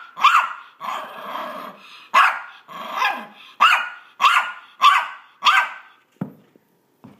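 Small Maltese dog barking in a quick series of sharp barks, about one every half second to second, with a longer growling stretch about a second in: excited play barking during fetch. The barking stops about six seconds in, and two soft knocks follow.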